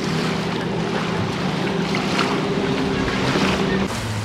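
A boat engine runs on the river with a steady low drone that drops lower near the end, over the wash of water and wind on the microphone.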